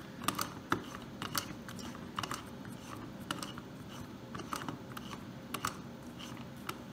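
Dial of a Mosler hand-change combination safe lock being turned by hand, with irregular sharp clicks from the lock's mechanism, a few a second.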